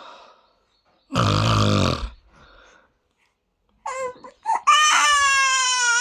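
A man's loud snore about a second in. About four seconds in it is answered by short whimpers and then one long, high, slightly falling wailing cry, a frightened reaction to the snoring.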